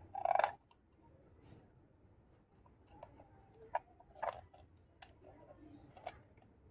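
Small plastic toy kitchen pieces being handled and set down: one louder handling noise just after the start, then a few scattered light clicks and taps.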